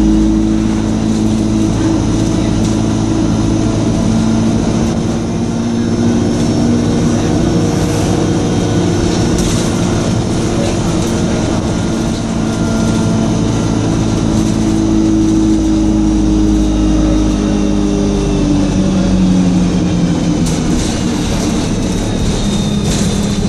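Stagecoach single-decker bus's diesel engine running under way, its note rising and falling with speed, with the turbocharger's high whine above it. A few rattles and clicks come through.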